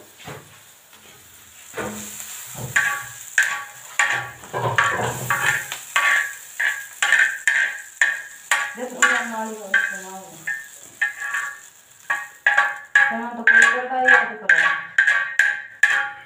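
Regular ringing taps, about two a second, starting a few seconds in. A voice sounds over two stretches, near the middle and near the end.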